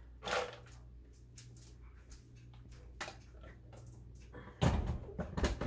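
Kitchen handling sounds from a plastic blender jar and frozen fruit: a brief rattle of frozen blueberries dropping into the jar, a few light clicks, then a louder thump and knocks near the end as the jar is lifted and handled. The blender is not running.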